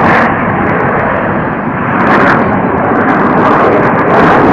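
Loud, continuous rush of jet engine noise from Blue Angels jets flying past, swelling about two seconds in and again near the end.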